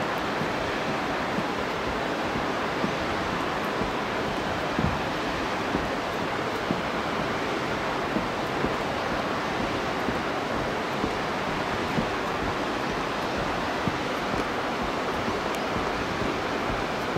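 Steady rushing of the Yoshino River flowing below, with soft thuds of footsteps on the bridge's wooden plank deck about once a second.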